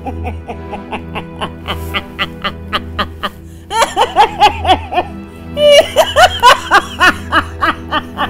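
A woman laughing in two bursts of gleeful, gloating laughter over background music with a steady beat.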